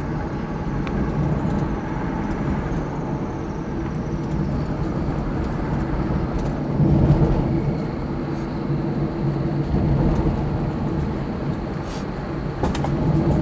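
Car driving slowly over a rough, bumpy back road, heard from inside the cabin: a steady low rumble of engine and tyres. It swells for a moment about seven seconds in, and a few sharp knocks come near the end.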